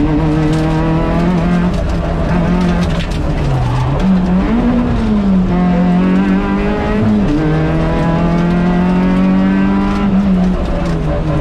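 Rally car engine heard from inside the cockpit, running hard at speed along a stage. Its pitch dips about three and a half seconds in, climbs again, and drops sharply around seven seconds and again near ten seconds as the gears change, over steady road and tyre noise.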